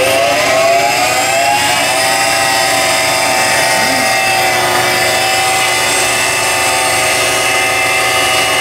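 A Fatigue Dynamics RBF-200 rotating-beam fatigue testing machine spins its specimen up to test speed with a loud whine. The pitch rises over the first couple of seconds as the speed is turned up, then holds steady at running speed.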